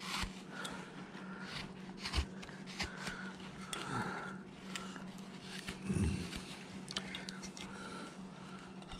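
A hand carving gouge slicing chips out of a block of wood: a series of short, separate cutting strokes, with a steady low hum underneath.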